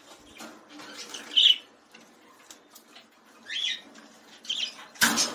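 Aviary birds giving a few short, high chirps, with faint scratchy ticks between them. There is a brief loud knock near the end.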